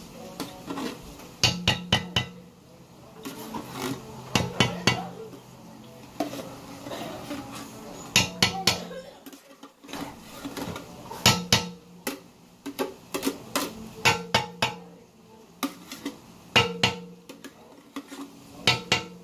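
A kitchen knife knocking and scraping against a food container in short bursts of sharp clicks, repeating every few seconds.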